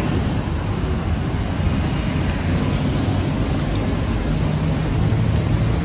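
Steady road traffic noise: a continuous low rumble of passing vehicles' engines and tyres, with an engine hum rising a little toward the end.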